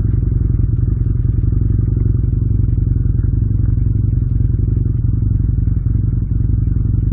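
Motorcycle engine running steadily at cruising speed while riding, with no rise or fall in revs.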